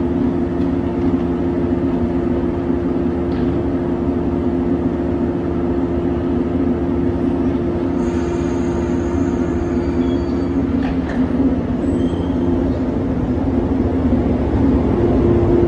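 JR West 115 series electric train standing at the platform with a steady low hum made of several tones, a few brief high tones sounding about eight to twelve seconds in. Near the end the sound grows a little louder as the train starts to pull away.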